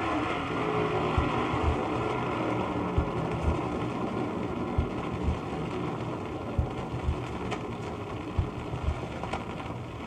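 Recorded drag-racing funny car with a 429 Ford V8, played back from a damaged cardboard record: a rough, noisy engine sound with irregular low thumps from the record's damage, slowly getting quieter.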